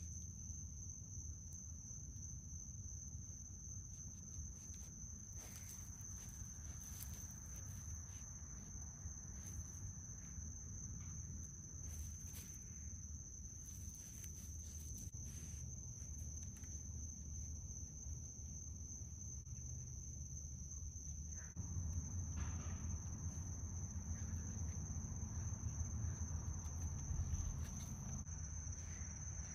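Crickets chirring steadily at one high pitch over a low rumble that gets louder about two-thirds of the way in. Scattered soft clicks and rustles come from raccoons moving about a feeding table on the grass.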